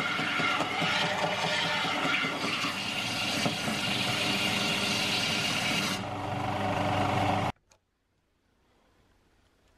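Einhell belt sander running, with a steel vise part pressed against the abrasive belt: a loud grinding rasp over the motor's hum. About three quarters of the way in it stops abruptly, leaving near silence.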